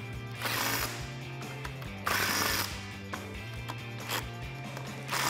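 Cordless impact wrench with a 15 mm socket firing in three short bursts, one for each of three nuts it runs down onto studs.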